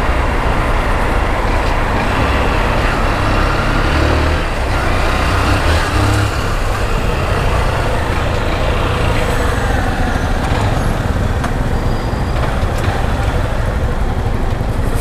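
Motorcycle riding through city traffic: the engine running under way, mixed with steady wind rush on the camera's microphone.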